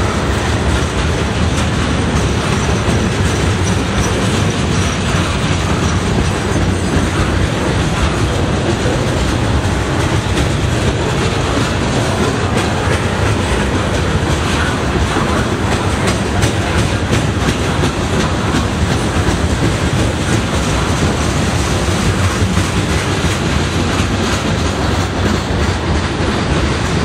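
Freight train of loaded centerbeam lumber flatcars rolling past at speed: a steady, loud rumble and clatter of steel wheels on the rails.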